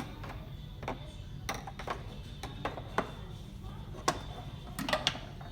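Toy grocery pieces being handled and packed away, giving about seven scattered sharp clacks and taps, the loudest about three and four seconds in, over a low steady hum.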